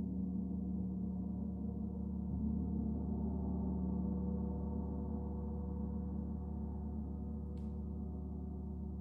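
Paiste Saturn planetary gong, tuned to D at 147.85 Hz, played in a steady sustained wash: a dense hum of many overlapping tones that does not decay. It is renewed by a soft stroke about two and a half seconds in.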